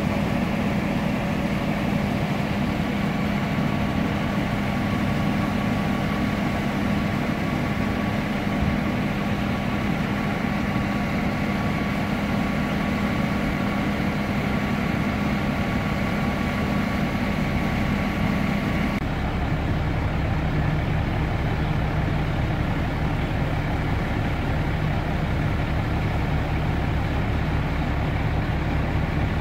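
Fire trucks' engines idling, a steady low hum. About two-thirds through, the hum shifts lower and heavier.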